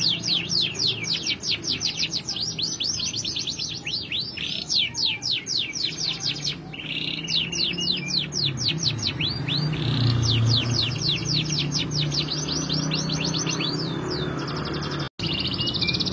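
Domestic canary singing: long runs of rapid, sharp down-sweeping notes, about five a second, broken now and then by short rolling trills, with a brief break near the end.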